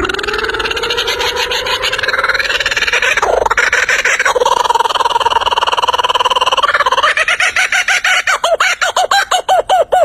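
Rooster crowing one long, drawn-out crow lasting about seven seconds, rising in pitch at the start. A fast run of short repeated notes follows near the end.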